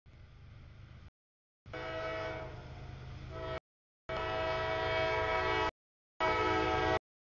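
Air horn of a CSX freight locomotive approaching a grade crossing: two long blasts and a short one, the opening of the standard long-long-short-long crossing signal. Before the horn, a brief rumble of the approaching train, and the sound cuts to dead silence between blasts.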